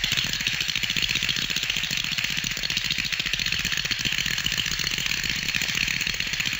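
A sound effect of a rapid, steady mechanical rattle or hammering, fast strikes running together, that starts abruptly and fades near the end.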